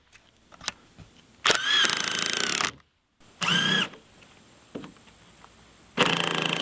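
Cordless impact driver driving screws in three bursts, its motor whine rising then holding, the longest about a second, with small clicks between.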